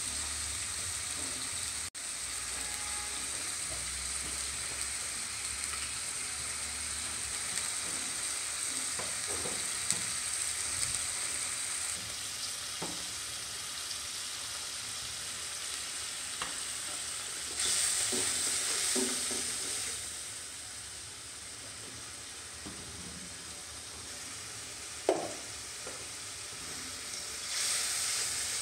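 Beef curry sizzling and bubbling in a pan as a steady hiss, with a wooden spatula stirring it and a few sharp clicks against the pan.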